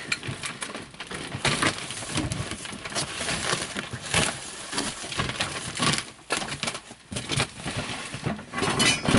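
Packaging and animatronic parts being handled during unboxing: continual rustling and crinkling with scattered knocks and clicks, getting louder near the end.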